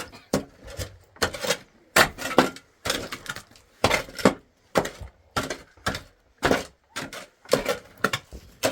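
A series of sharp, hard knocks, unevenly spaced at about one to two a second.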